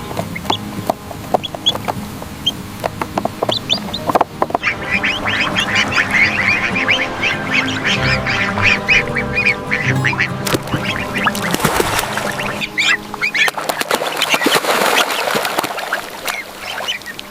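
A group of ducklings peeping and quacking, with many short high chirps coming thick and fast from about four seconds in, over background music.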